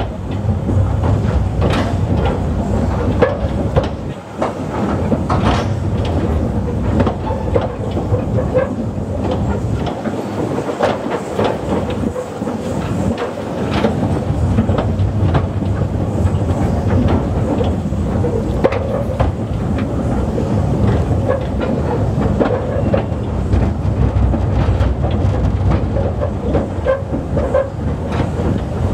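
Narrow-gauge railway vehicle running along the track: a steady running noise with irregular clicks and knocks from the wheels on the rails.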